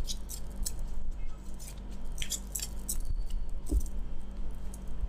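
An oracle card deck being shuffled by hand: an irregular run of quick, crisp card snaps and taps.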